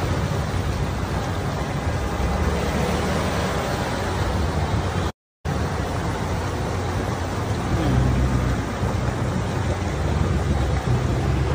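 Cars driving slowly through deep floodwater: engines running under a steady rush and slosh of water pushed aside by the wheels. The sound drops out briefly about five seconds in.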